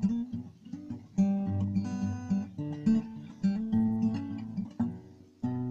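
Acoustic guitar strumming chords: the instrumental introduction of a song, each strum ringing and fading, with a short lull about five seconds in before the next chord.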